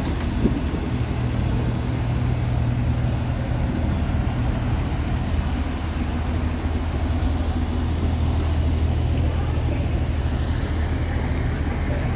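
Small boat's engine running steadily under way, with a constant rushing noise over it and a single light knock about half a second in.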